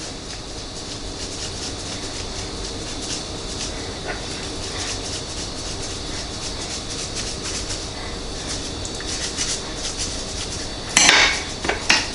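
Poultry seasoning shaken from a spice shaker over a turkey breast roast in a glass baking dish: a soft, fast patter of granules. Near the end come two loud clattering knocks against the dish, about a second apart.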